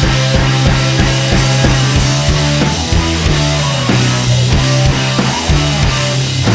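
Rock music with a steady drum-kit beat over a held bass line.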